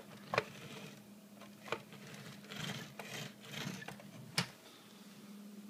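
A few sharp taps, the loudest about four seconds in, with some rustling between them over a steady low hum.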